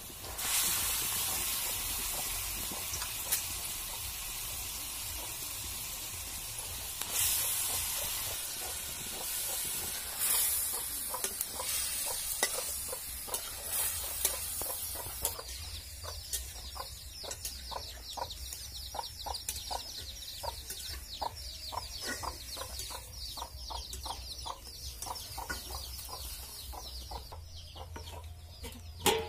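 Raw chicken pieces hitting hot oil in an iron wok and sizzling loudly, the hiss surging as more pieces go in. In the second half a metal spatula stirs and scrapes the pieces around the pan in quick repeated strokes, and near the end a metal lid clanks onto the wok.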